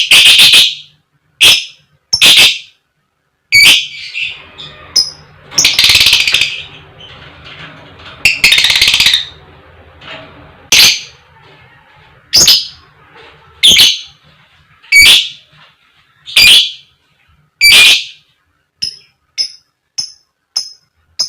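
Lovebird giving loud, harsh 'koek koek' calls, about one a second, with two longer calls a few seconds in and shorter, quicker notes near the end.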